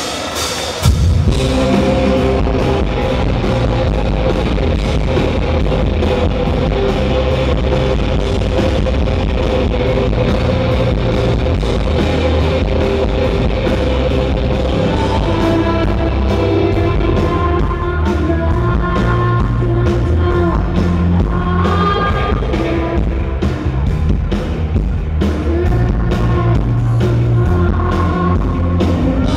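Indie rock band playing live through a hall PA, with electric guitars, bass and drum kit and a woman singing, kicking in loudly about a second in. Recorded from the audience on a low-quality camera mic.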